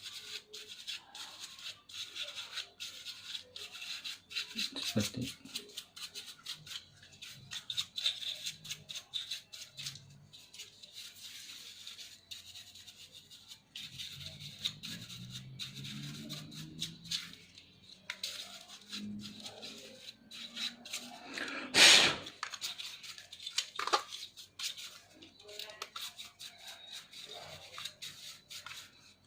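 A small brush scrubbing dust off a laptop's cooling fan and heatsink in quick, short, scratchy strokes. A single sharp click sounds about 22 seconds in.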